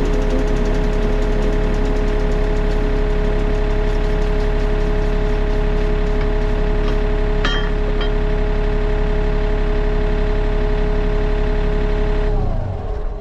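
Sany SY35U mini excavator's diesel engine running steadily, with a steady whine over it, then shutting down near the end and winding to a stop.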